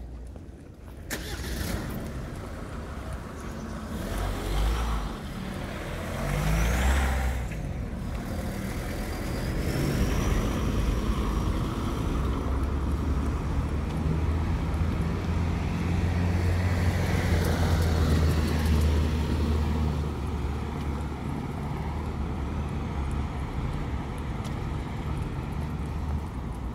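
Street traffic: a motor vehicle's engine running close by, a steady low rumble that builds about ten seconds in and is loudest past the middle, after shorter swells of passing traffic early on.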